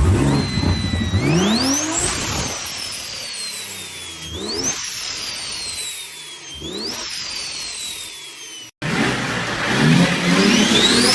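Turbocharged car engine revved in three blips, each with a turbo whistle that rises high as the turbo spools and slides down slowly after the throttle is lifted, the turbo fluttering. About 9 s in it cuts to a different turbocharged car doing the same, its whistle rising and falling again.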